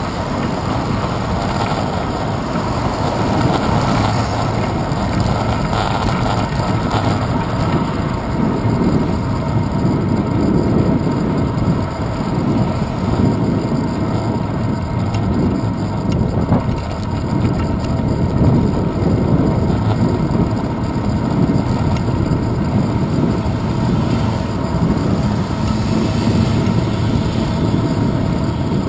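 Steady low rumble of wind and road vibration on a handlebar-mounted GoPro Hero 2 as a bicycle rides along a paved street, with gusty rises and falls.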